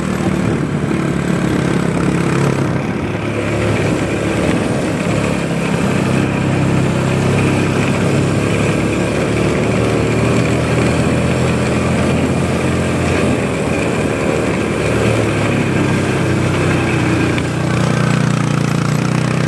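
Motorcycle engine running steadily under way, with rough rumble mixed in; its note firms up and gets a little louder near the end.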